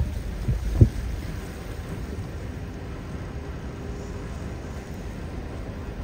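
Typhoon wind buffeting the microphone with a steady low rumble, and one sharp buffet a little under a second in.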